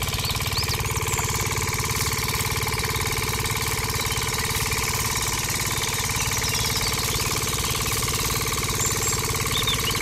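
Small motor running steadily with a fast, even pulsing hum, driving the belt and rollers of a miniature sugarcane-crusher model as it presses cane.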